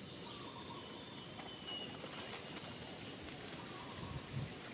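Outdoor background hiss with a few faint, thin high chirps and a couple of soft knocks near the end.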